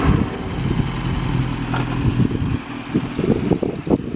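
A Morris Eight Series I's small four-cylinder side-valve engine running steadily on light throttle as the car moves off. From about three seconds in, gusts of wind buffet the microphone.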